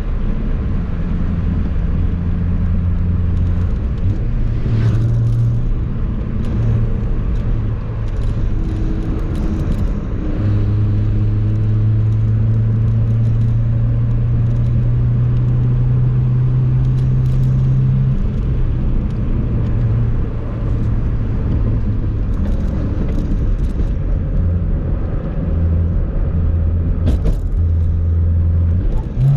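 Honda Civic EG5 with an aftermarket exhaust running steadily at low revs, a deep exhaust hum that holds its pitch and shifts in small steps.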